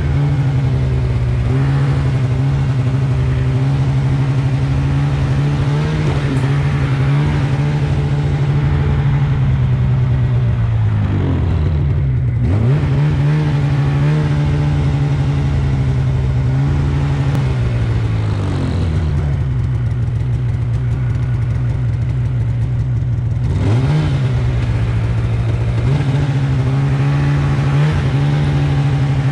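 Polaris snowmobile engine running steadily under throttle while riding a snow trail, easing off and revving back up twice, about eleven seconds in and again near twenty-four seconds.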